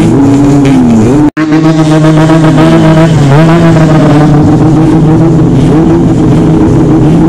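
Yamaha RX-King two-stroke single-cylinder engines revving hard through loud aftermarket exhausts. The pitch rises and falls, is held high in stretches, and cuts out for an instant about a second in.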